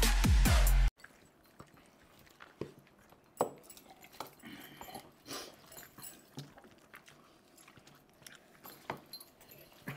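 Loud electronic music with a heavy bass that cuts off suddenly about a second in, then people eating biryani by hand: chewing and mouth sounds, fingers working rice on banana leaves, and occasional sharp knocks.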